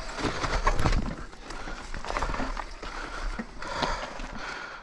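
Trek Slash 7 full-suspension mountain bike descending a steep trail: tyres crunching over dirt and loose stones and the bike clattering over the rough ground, with the heaviest knocks and thumps about a second in.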